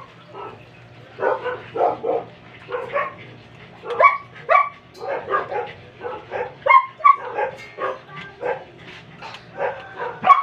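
Six-day-old Persian kitten mewing in short, high, repeated cries, about one or two a second.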